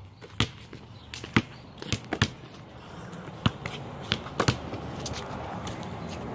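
A basketball bouncing on a hard surface: about ten sharp, irregular bounces as it is dribbled and played.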